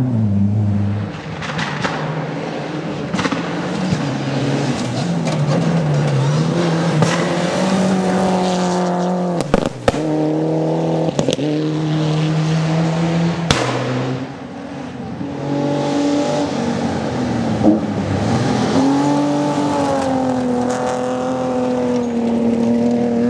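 Rally cars passing one after another on a gravel stage, their engines revving hard, with the pitch rising and falling as they shift and back off. A few sharp clicks come in the middle.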